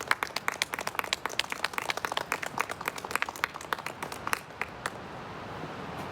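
A small group of people clapping, a quick irregular patter of hand claps that cuts off suddenly at the end.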